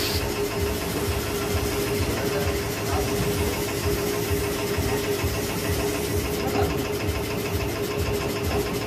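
A motor running steadily, a constant hum over a fast, low chugging.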